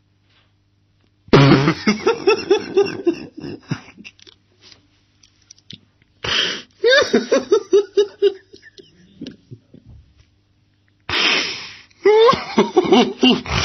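A man laughing in three fits, each opening with a sharp burst of breath and breaking into rapid pitched pulses.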